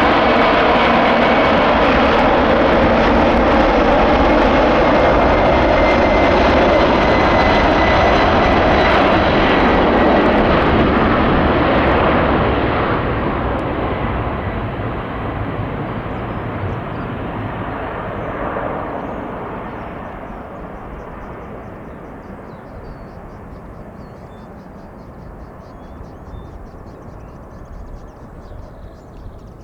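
Boeing 747-400 freighter's four jet engines at take-off power, a loud, steady roar with a faint whine on top. About twelve seconds in it begins to fade steadily as the jet climbs away.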